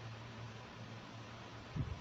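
Faint steady hiss and low hum, with one soft low thump near the end as the small plastic toy is handled.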